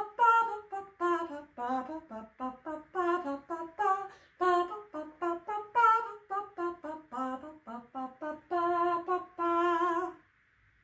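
A woman singing a wordless melody on her own, without accompaniment, mostly in short separate notes, ending on two longer held notes and then stopping.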